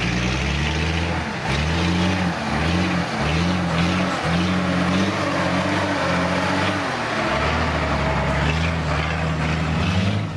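Star military truck's engine working hard on a sandy off-road track, its pitch rising and dropping several times as it is revved through the ruts, then holding steadier in the last few seconds as the truck drives close past.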